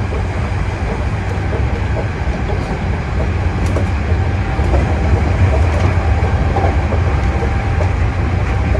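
Hankyu 8000 series electric train running at speed, heard from the driver's cab: a steady, loud rumble of wheels on the rails.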